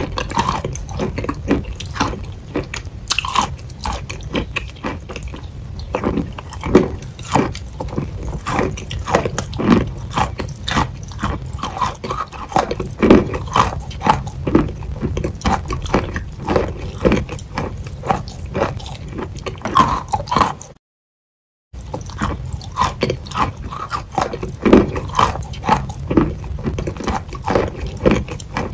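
Close-miked biting and chewing of a white block of food: a dense run of short crunches and mouth sounds. About two-thirds through, the sound cuts out completely for about a second, then the chewing resumes.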